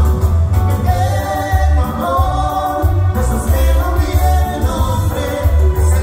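Live band playing dance music, with a lead vocal sung over a pulsing bass line.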